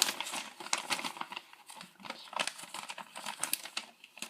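Irregular crinkling and rustling of a plastic polybag and paper instructions being handled.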